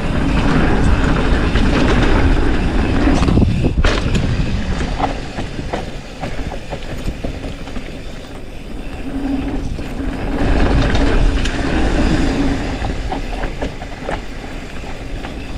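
Mountain bike riding fast down a dirt trail, heard from a chin-mounted action camera: wind rush on the microphone, tyres on dirt, and the bike rattling, with sharp knocks over bumps. Louder for the first few seconds, easing in the middle and picking up again.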